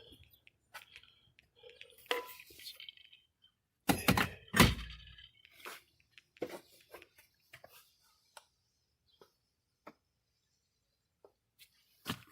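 A dull thunk about four seconds in, amid scattered light clicks and knocks, from the car's doors and trim being handled.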